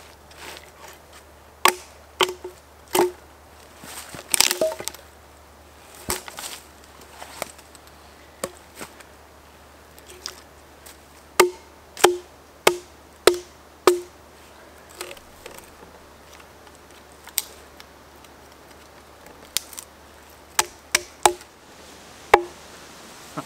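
An axe striking into a maple log as it is split lengthwise, about sixteen sharp woody chops at an uneven pace, including a quick run of five in the middle and another tight cluster near the end. The blows cut through the stringy fibres still holding the halves together: the wood is from the butt end of the tree, fibrous and twisted, so it does not split cleanly.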